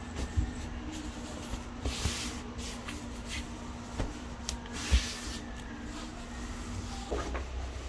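Cotton bed sheet rustling and swishing as it is folded and pressed flat on a mattress, with a few soft pats and small knocks. A faint steady hum runs underneath.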